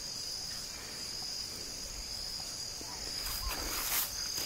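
Steady, high-pitched chorus of insects shrilling, with a faint rustle coming in about three seconds in.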